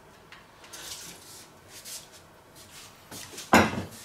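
Faint kitchen handling noises, then about three and a half seconds in a single loud knock as an earthenware Römertopf clay roasting pot is set down.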